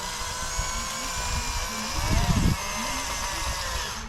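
Motors of RC model construction machines whining, a steady high-pitched whine with several tones that drift slightly in pitch, with a louder low rumble about two seconds in.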